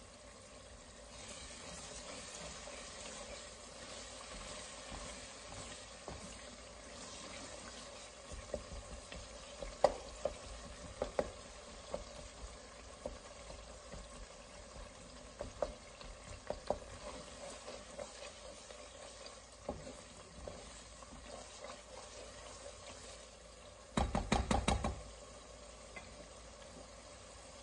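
Chopped tomatoes and onions sizzling gently in oil in a pot, with a wooden spatula stirring and tapping against the pot, scattered clicks through the middle. A brief, louder burst of knocking comes near the end.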